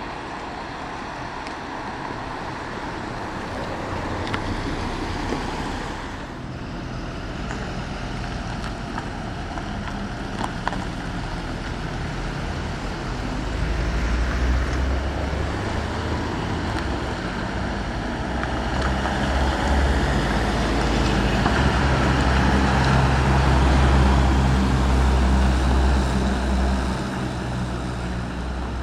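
Road traffic going by, with tyre noise and the low hum of engines. About halfway in a heavy vehicle's engine grows louder, and it fades again shortly before the end as the vehicle passes.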